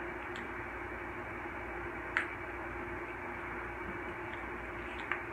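Steady background hiss with a faint low hum, broken by one short click about two seconds in.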